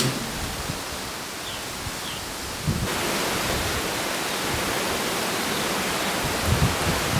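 Steady outdoor background noise like wind on the microphone, which gets louder and brighter about three seconds in. A few low thumps come near the end.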